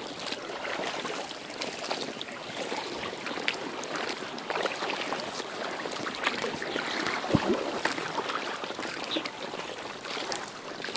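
Water splashing and dripping from kayak paddle strokes, with water sloshing around an inflatable kayak as it moves along the river.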